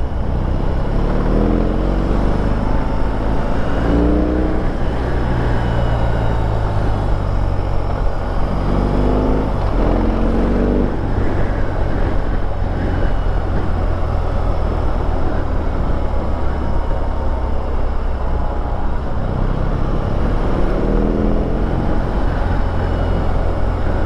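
BMW R18's 1802 cc boxer-twin engine running with a deep steady rumble at low speed, revving up briefly three times: about a second in, around nine seconds and around twenty seconds.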